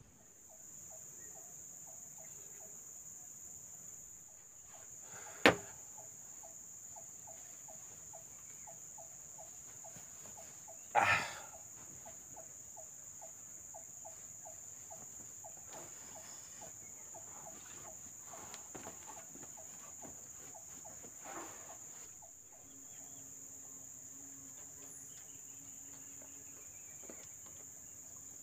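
Steady high-pitched drone of insects, with a rapid pulsing call repeating through the middle of it. Two sharp, loud knocks stand out, about five and about eleven seconds in.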